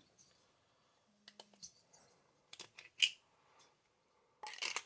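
Chainsaw cylinder and a screwdriver being handled on a towel-covered bench: scattered light clicks and taps of small metal parts, one sharper click about three seconds in, and a short scrape near the end.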